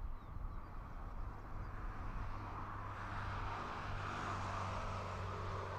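Steady low hum of a motor vehicle, with a hiss that swells about halfway through.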